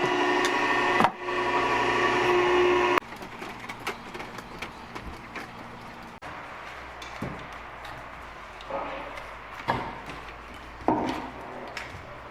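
Oak firewood being handled: scattered wooden knocks, cracks and clatter. A loud steady drone with held tones plays over the first three seconds and cuts off suddenly.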